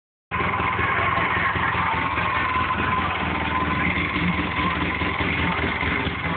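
Polaris Ranger RZR 4 800 side-by-side's twin-cylinder engine idling steadily.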